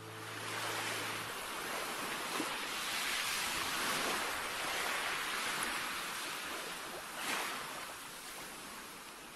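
A rushing noise like ocean surf, swelling and then fading, with a brief louder surge about seven seconds in.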